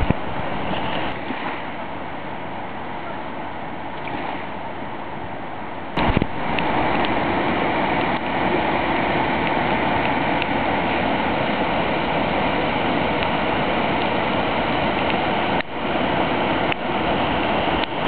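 River Ain in flood: swollen, fast water rushing, a steady noise that gets louder from about six seconds in.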